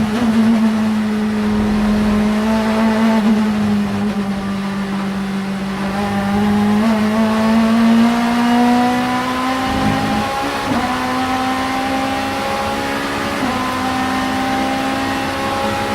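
Vauxhall Vectra supertouring race car engine running hard at high revs. Its note sags a little, then climbs steadily, with a brief break about ten seconds in and another small step a few seconds later.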